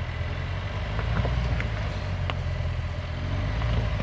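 Range Rover Sport engine running at low revs as the SUV crawls slowly over a rocky trail, with scattered sharp clicks and cracks of loose stones under the tyres.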